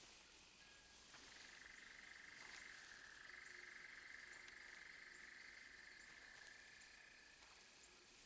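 Very faint nature ambience: a steady, high-pitched chorus of calling small animals sets in about a second in and fades near the end, with a few soft clicks.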